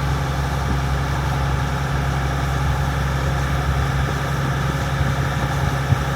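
International Harvester 1460 combine's diesel engine running steadily, a constant deep hum.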